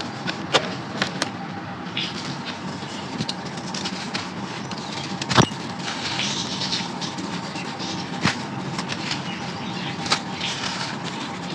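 Brown crunchy sand being crumbled by hand in a clay pot: a continuous gritty crunching with scattered sharp snaps, the loudest about five seconds in.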